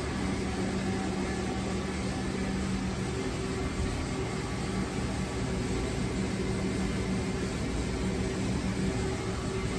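Steady hum of running machinery, a low even tone over a constant whirring noise, with no cutting or impacts.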